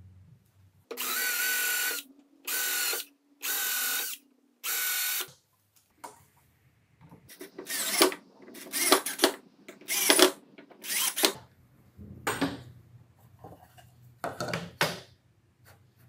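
Cordless drill-driver driving screws into wood in short trigger bursts: four even runs at a steady pitch, then a series of shorter, uneven bursts as the screws bite and seat.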